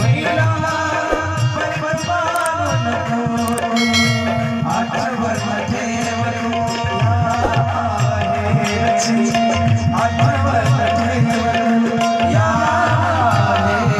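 Devotional kirtan music: tabla and dholak keep a steady rhythm under a held, wavering melody line.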